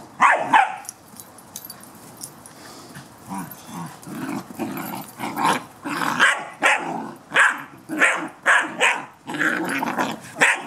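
Two puppies, an Irish Wolfhound and a black Labrador, play-fighting with short sharp barks: one loud bark right at the start, a few scattered ones, then about two a second through the second half.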